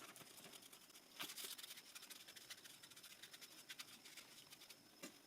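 Near silence, with faint scattered ticks and a brief soft rustle just over a second in.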